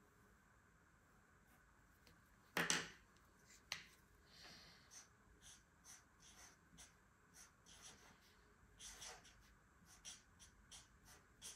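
Marker pen scratching on a sheet of paper in a string of short strokes, writing letters. A brief louder rustle comes about two and a half seconds in, with a sharp click just after it.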